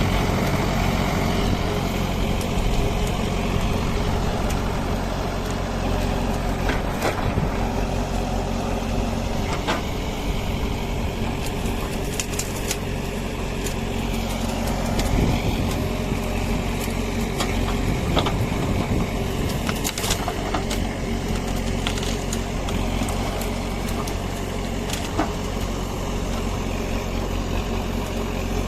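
JCB 3DX backhoe loader's diesel engine running steadily, with a few sharp knocks now and then.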